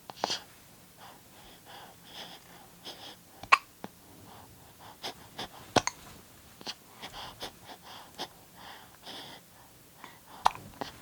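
Young baby hiccuping: short, sharp hiccups every few seconds, the loudest near the start, about three and a half seconds in, near six seconds and near the end, with softer hiccups and small breathy sounds between.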